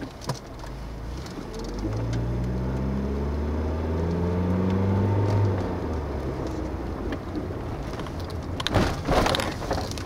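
Car engine running with a low hum whose pitch shifts in steps for several seconds. About nine seconds in there is a short cluster of louder rustling knocks.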